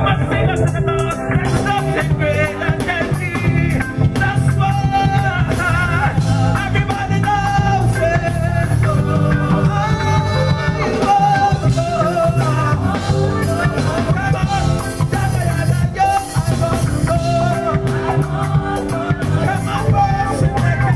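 Live worship band playing an upbeat song, with voices singing over it. The band is drum kit, bass guitar, electric lead guitar and keyboards.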